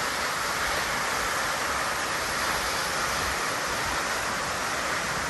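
A waterfall rushing: a steady, even roar of falling water.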